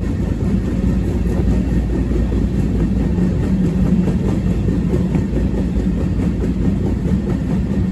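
Freight train rolling along the track: a steady low rumble with faint, regular clicks from the wheels.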